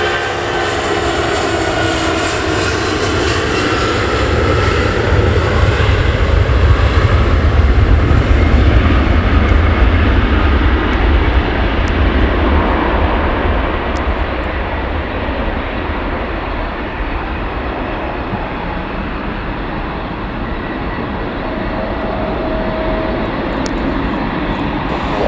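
Airliner engines passing close by: a falling whine at first, then a low rumble that swells about eight seconds in and slowly fades.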